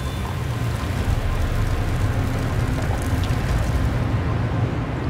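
A steady low rumble with an even hiss over it, a sound-design drone without speech or clear music.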